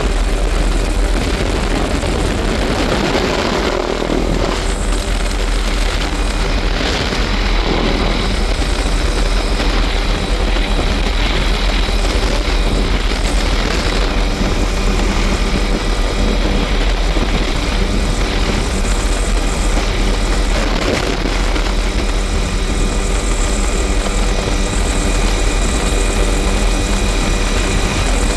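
Tour helicopter in flight, heard from inside the open, doors-off cabin: a loud, steady mix of rotor and engine noise with rushing air.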